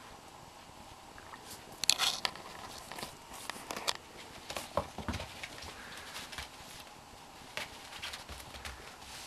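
A kitten's paws scuffing and thudding on carpet and a futon as it pounces and bats at a sock: irregular scattered taps and rustles, the loudest about two seconds in.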